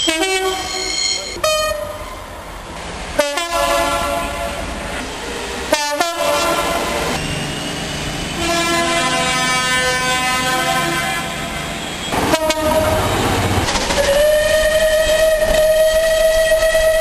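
Diesel locomotive horns sounding in a run of short clips cut together, each a steady held note over the noise of the train on the rails. A long single horn note starts near the end.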